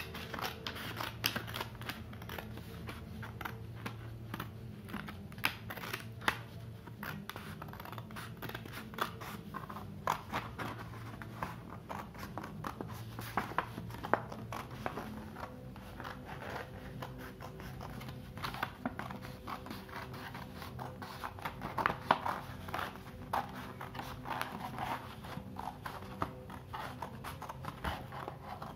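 Scissors snipping through thin colour paper: many short cuts in quick succession, with pauses as the sheet is turned.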